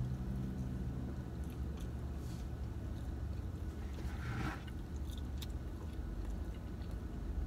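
Close-up eating sounds: biting and chewing into a cookie ice cream sandwich, over a steady low hum in a car cabin, with a short rustling swish about four seconds in.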